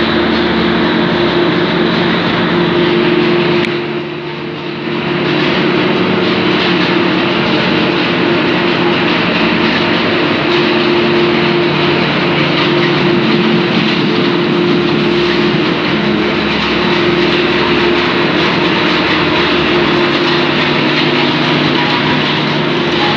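A 7-ply corrugated board production line running: a steady machine noise with a few held hum tones, dipping briefly about four seconds in.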